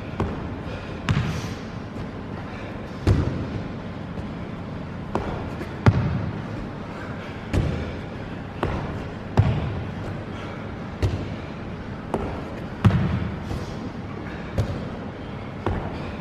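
Trainers stomping up onto a padded box and back down onto a wooden floor during box step-ups, a heavy thud every one to two seconds.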